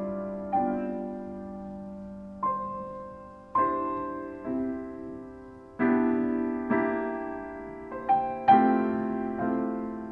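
Solo grand piano playing a slow piece: chords struck one after another, each left to ring and fade before the next.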